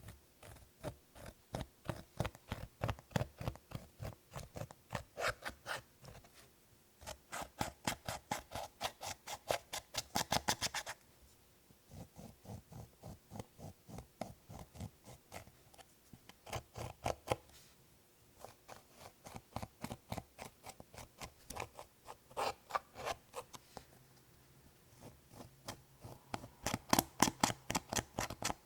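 Clear slime being squeezed and kneaded by hand, giving rapid wet clicks and pops about four a second, in runs of a few seconds broken by short pauses.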